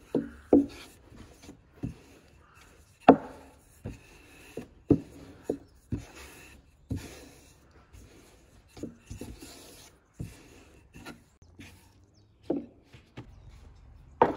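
Wooden rolling pin rolling out dough on a wooden board: back-and-forth rubbing strokes with sharp wooden knocks roughly once a second, the loudest about three seconds in.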